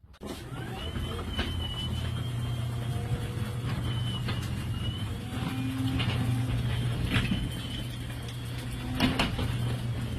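LiftMaster belt-drive garage door opener running as the door travels: a steady low motor hum with scattered clicks and a few high squeaks.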